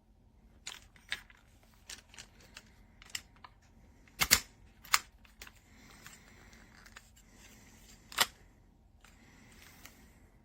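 Irregular clicks and knocks of small hard objects being handled, with three louder sharp knocks in the middle and near the end.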